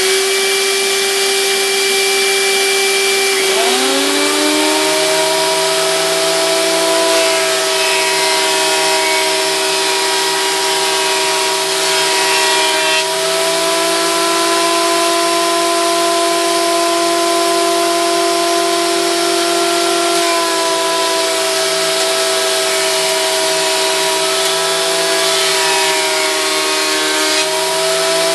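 A benchtop planer-thicknesser and the shop vacuum on its dust port run together, loud and steady, while boards are fed through to plane them to thickness. About three and a half seconds in, one motor spins up with a rising whine and settles to an even pitch.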